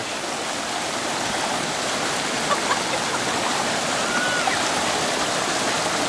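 Small river waterfall pouring over rocks: a steady, even rush of running water close by.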